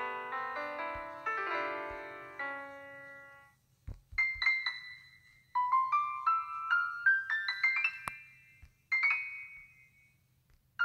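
Background keyboard music: held piano-like chords that fade out, then a run of short bright notes climbing step by step, with a short pause near the end.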